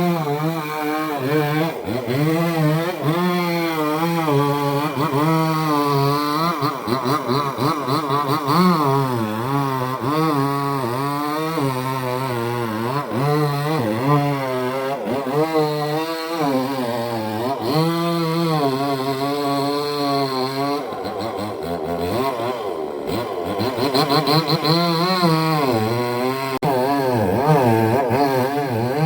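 Petrol chainsaw running and cutting through wood, its engine pitch repeatedly dropping as the chain loads up in the cut and rising again as it frees.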